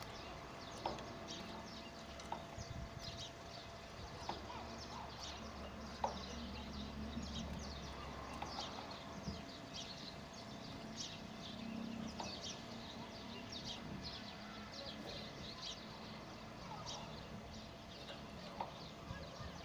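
Small birds chirping, a steady run of short, high, downward chirps. A low hum underneath stops about eight seconds in, and a few faint clicks are scattered through.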